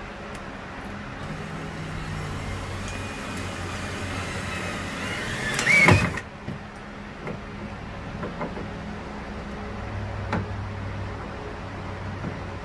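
Cordless drill driving a long screw into wood: the motor runs for a few seconds, whining louder and higher, then stops abruptly about six seconds in. A few light clicks and a brief low hum follow.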